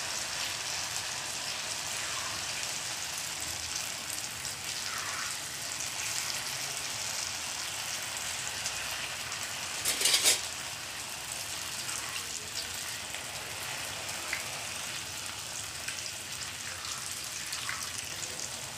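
Batter-coated spiral potato sticks deep-frying in hot oil in a kadhai: a steady bubbling sizzle, with a brief louder burst about ten seconds in.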